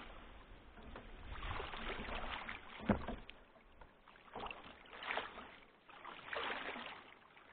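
Kayak paddle strokes in the water, coming in uneven swells about a second apart, with a single sharp knock about three seconds in.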